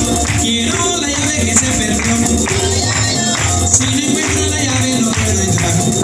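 Upbeat Palo de Mayo dance music: a steady, quick beat with percussion and a singing voice.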